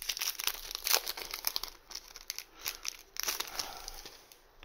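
Plastic sleeves on a stack of trading cards crinkling as the cards are handled, in irregular crackles that are busiest about a second in and again just after three seconds.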